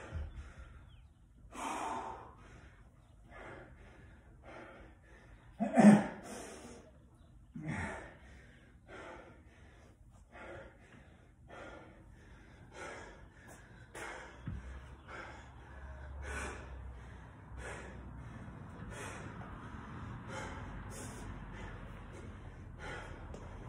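A man panting hard, winded from a set of dumbbell snatches: loud gasping breaths in and out, roughly one a second, the loudest about six seconds in.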